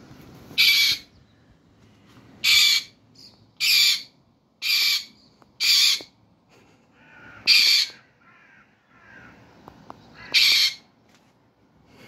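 A conure squawking: seven loud, harsh calls, each under half a second, one to three seconds apart, with faint chirps in between.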